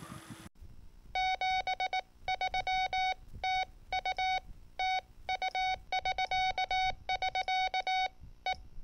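Morse code (CW) sent as a single steady beeping tone, keyed in a run of short dots and longer dashes that starts about a second in.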